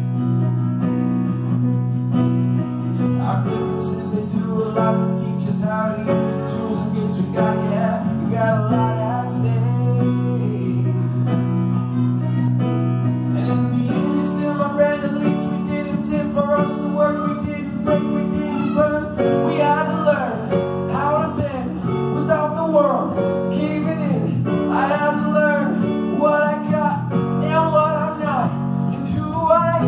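Live band playing a song: a man singing lead into a microphone over strummed acoustic guitar and sustained keyboard chords. The voice comes in a few seconds in, and the chords shift about halfway through.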